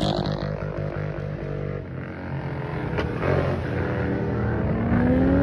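Performance car engine coming off a rev, its pitch dropping, running low and choppy for a few seconds, then revving up again near the end, with a sharp click about three seconds in.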